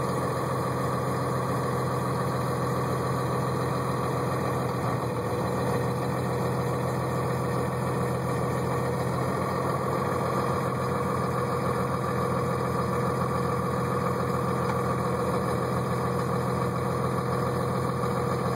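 2011 Freightliner M2 106's 6.7 Cummins ISB diesel idling steadily at about 800 rpm, still cold shortly after a cold start, heard from inside the cab.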